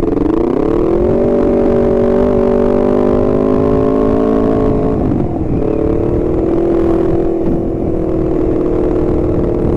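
Honda CBR250RR parallel-twin engine pulling under way, its pitch climbing over the first second and then holding steady. About five seconds in the pitch dips briefly and climbs again, as with a gear change, over a steady low rumble of wind and road.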